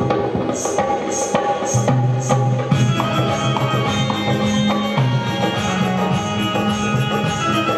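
Instrumental passage of Marathi folk devotional music: hand-drum strokes at about two to three a second, thinning out about three seconds in, under a melody instrument holding sustained notes that step up and down in pitch.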